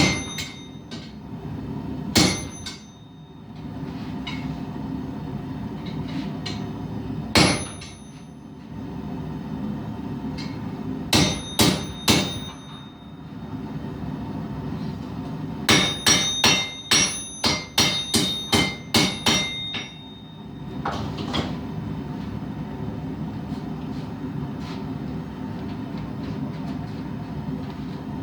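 Hand hammer striking steel on an anvil, each blow with a bright metallic ring: a few scattered single blows, then a quick run of about ten strikes some sixteen seconds in. A steady hum runs underneath.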